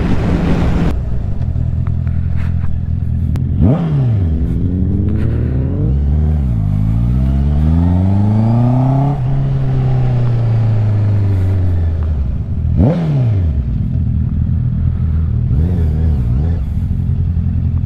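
Honda inline-four sport bike's engine running at low speed, its note rising and falling with the throttle. The pitch drops and snaps back up sharply twice, about four and thirteen seconds in. There is a rush of wind noise in the first second.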